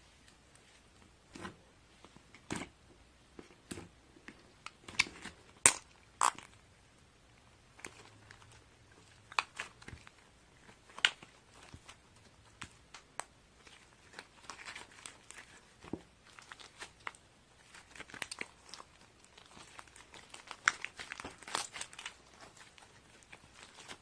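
Clear slime being kneaded by hand with clay mixed in, making irregular sticky clicks and pops with short crackly stretches.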